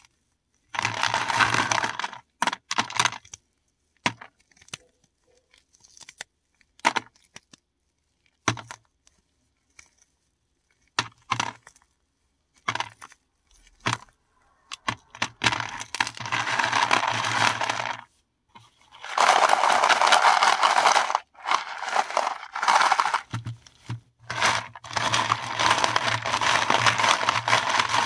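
Paradichlorobenzene mothball tablets crushed and ground between the hands. Stretches of dense crunching lasting a few seconds each are separated by single sharp clicks of hard pieces knocking together.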